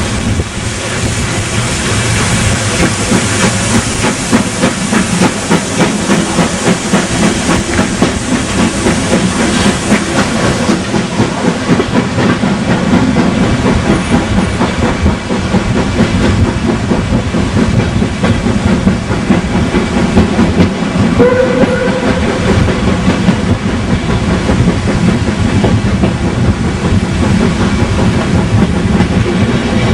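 A train running, its wheels clattering rapidly and steadily over the rails under a constant hiss, with a brief faint tone about two-thirds of the way through.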